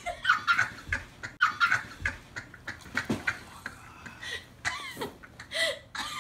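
A woman laughing in repeated short bursts, the pitch sliding up and down, a laugh that sounds "so nasty".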